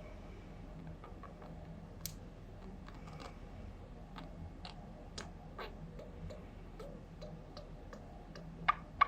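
Budgerigar making a run of short popping clicks at an irregular pace, a few a second, with two louder pops near the end.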